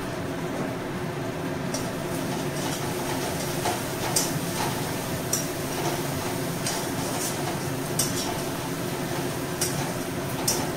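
Metal spatula stirring frying masala in a metal kadai, scraping and clinking against the pan about once a second, irregularly, over a steady low hum.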